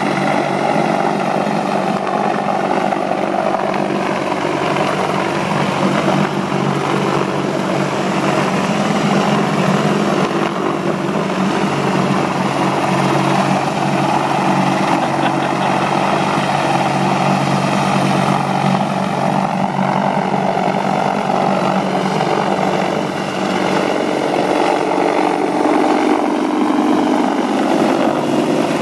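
AH-64 Apache attack helicopter flying low past, its main rotor and twin turboshaft engines running loud and steady. The pitch bends for a few seconds about two-thirds of the way through as it passes.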